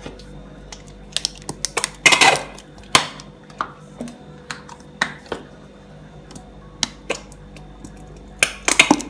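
A plastic squeeze bottle of mayonnaise being squeezed into a glass bowl: scattered clicks and short sputtering squirts, the two loudest about two seconds in and near the end.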